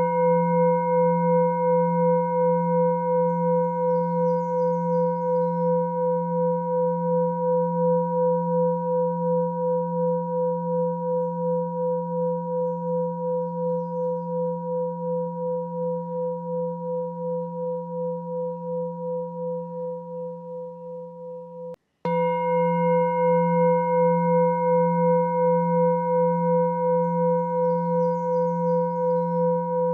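A sustained ringing meditation tone, a low hum with several higher overtones, pulsing about twice a second. It fades slowly, cuts off about 22 seconds in and starts again at full strength right after.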